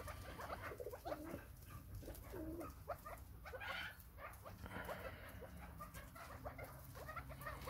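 Flock of chukar partridges feeding on fresh greens: many faint pecking and rustling ticks, with scattered soft short calls.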